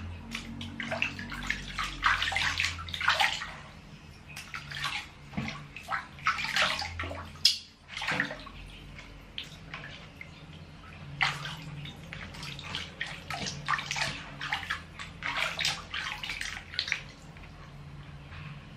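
Water splashing and sloshing in a plastic basin as hands wash a baby monkey, dipping it and scooping water over its fur. The splashes come irregularly, with a couple of brief lulls.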